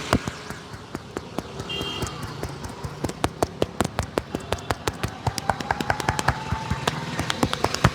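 Barber's hands tapping and slapping rapidly on a person's head in a percussive head massage: a run of sharp claps, sparse at first, then about five or six a second from about three seconds in, over a background of traffic.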